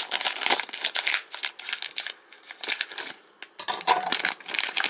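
Crinkling and rustling of a plastic card surprise bag being handled and opened, in quick rapid crackles with a brief lull about halfway through.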